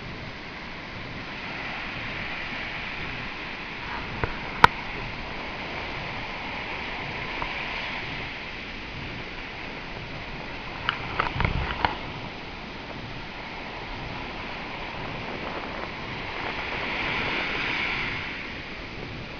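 Surf washing on a beach: a steady hiss that swells and fades, loudest toward the end. A single sharp click comes about four and a half seconds in, and a short cluster of knocks with a low thump around eleven to twelve seconds in.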